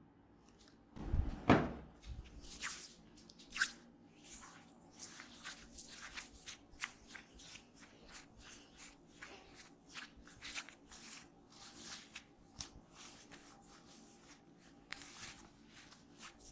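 Hands massaging oiled hair and skin: soft, short rubbing and squishing strokes, roughly one to two a second, after two heavy thumps about a second in.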